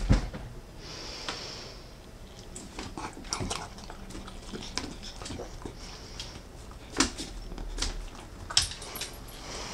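A corgi eating a piece of chicken from a person's fingers: chewing and licking in short, irregular smacks, with a few sharper clicks.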